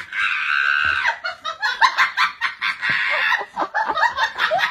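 People laughing hard and high-pitched, in two long peals with short choppy bursts between.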